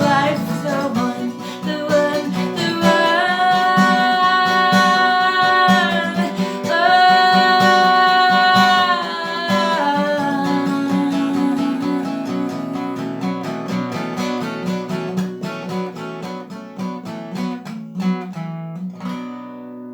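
Acoustic guitar strummed steadily, closing out a song. A voice holds two long sung notes over it in the first half. The guitar then carries on alone and fades toward the end.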